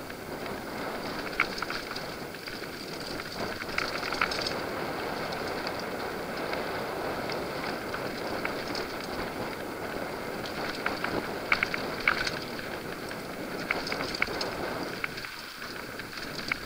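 Mountain bike riding fast down a dirt singletrack: a steady rumble of knobby tyres on dirt and gravel, with scattered clicks and rattles from the bike over the rough ground. The rumble drops briefly about a second before the end.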